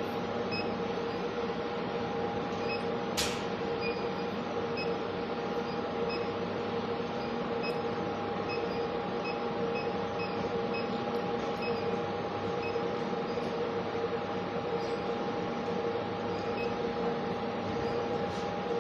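Steady machine noise: an even hiss with two constant hum tones, a faint tick repeating about every three quarters of a second, and one sharp click about three seconds in.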